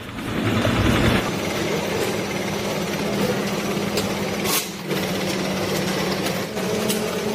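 Electric arc welding on a metal feed dispenser: a steady crackling buzz with a constant low hum, breaking off briefly about four and a half seconds in before the arc is struck again.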